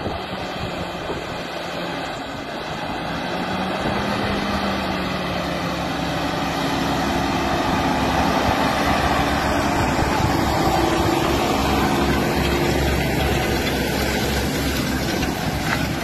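Diesel engine of a large self-propelled slurry tanker running under load as it drives across a stubble field, getting louder over the first several seconds as it comes closer.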